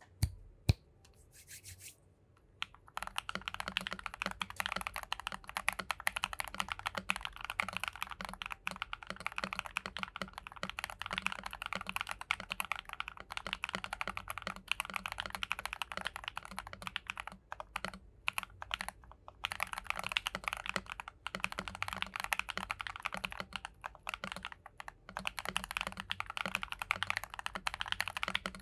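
Typing on a GMMK TKL mechanical keyboard fitted with Akko CS Silver linear switches and tuned, lubed stabilizers: a fast, dense run of keystrokes with a few short pauses. One or two single sharp clicks come first, and the continuous typing starts about three seconds in.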